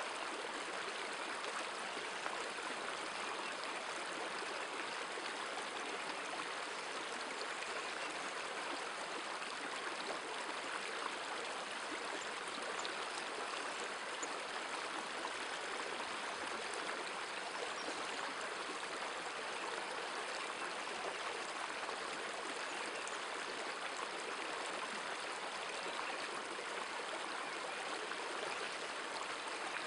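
Shallow, stony river running over rocks and riffles: a steady rush of flowing water.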